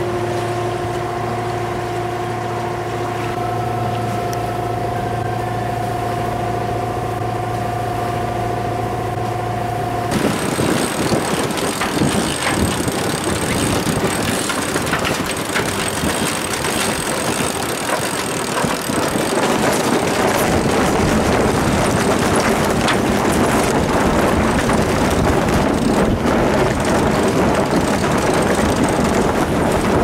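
A Beneteau Oceanis 45 sailing yacht's inboard diesel running steadily with a low hum while the boat is under way. About ten seconds in the engine sound stops abruptly, and strong wind buffeting the microphone and the wash of waves take over as the yacht sails.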